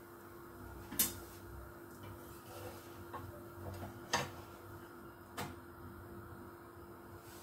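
Metal spatula tapping and scraping against a flat griddle (tawa) as a stuffed flatbread is slid loose and turned over: three short sharp clicks, about a second, four seconds and five and a half seconds in, over a faint steady hum.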